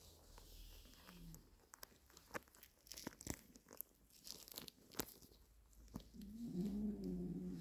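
Snoring. About six seconds in comes one drawn-out, low snore lasting nearly two seconds, after a run of scattered small clicks and crackles.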